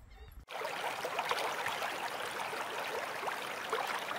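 Running water: a steady rushing with many small splashes and short bubbling chirps, starting abruptly about half a second in.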